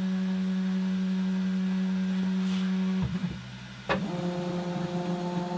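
Stepper motors of an Ooznest WorkBee CNC machine whining steadily as the gantry moves through a job with the router spindle switched off. The whine drops out about three seconds in, a sharp click follows, and it resumes at a different pitch.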